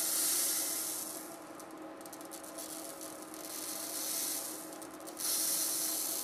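Hundreds of tiny solder balls pouring and rolling across a BGA reballing stencil as the jig is tilted, a hissing rattle like pouring sand. It comes in two loud surges, at the start and again about five seconds in, with scattered ticks of single balls between.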